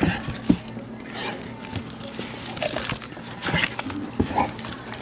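Two dogs play-fighting: irregular scuffling and thumping with brief dog vocal sounds and jingling collar tags.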